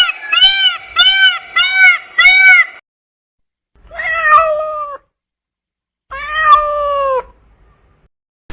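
Cat meowing: a quick series of four short, arched meows, then two longer meows that fall in pitch, with silent gaps between them.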